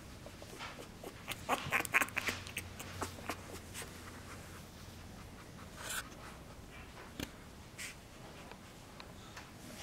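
Soft scratching and rustling on a fleece blanket as a very young boxer puppy is handled and crawls on it, with a quick run of scratches about one and a half to two and a half seconds in and a few single scratches later.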